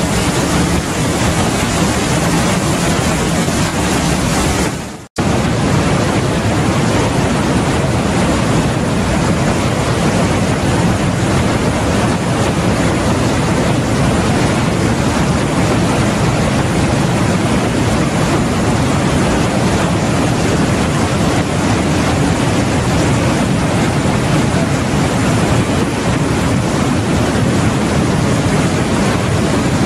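Trümmelbach Falls pouring through a narrow rock gorge: a loud, steady roar of rushing and churning water, briefly cutting out about five seconds in.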